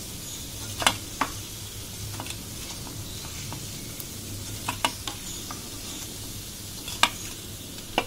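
Onion pakoras sizzling steadily in hot mustard oil, with a wooden spatula knocking sharply against the pan several times as the fried pakoras are lifted out.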